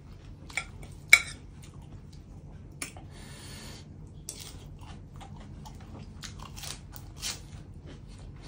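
Close eating sounds: a metal spoon scooping and clinking on the plate, with a sharp click about a second in, then crunchy bites and chewing of spicy shrimp laab with fresh lettuce.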